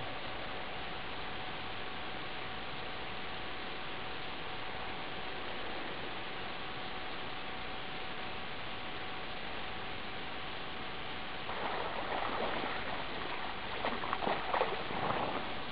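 Water splashing and sloshing from swimming strokes, in a cluster of bursts starting about three quarters of the way in and again near the end, over a steady hiss with a faint hum.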